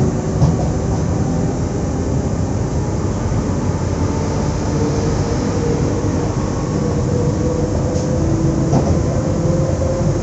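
Steady hum and whir of a stationary SNCF Z 20500-series (Z2N) double-deck electric multiple unit standing at a platform, with a few faint tones that drift slowly in pitch.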